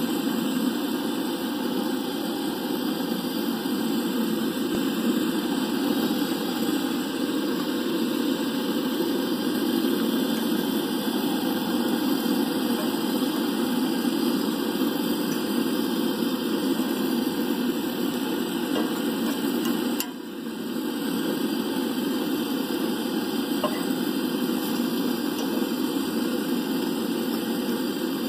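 Coleman two-burner propane camp stove burning steadily under a cast iron skillet, a continuous low rushing noise. It drops briefly about twenty seconds in, and there are a few faint ticks.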